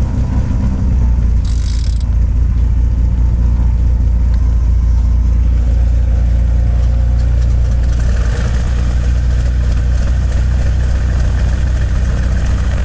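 The Cessna 310R's twin piston engines running steadily at low power after start-up, a deep, even drone, with a brief hiss about one and a half seconds in.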